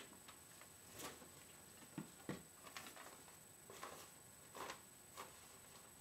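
Faint cloth rustling and a few soft knocks from a person sitting down on a chair and pulling a fabric hood over the head, with two sharper knocks about two seconds in. Behind it is a quiet room hiss with a faint high steady whine.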